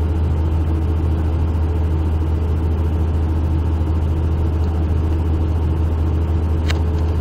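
Steady low drone of an ambulance's engine and running noise, heard from inside the cab.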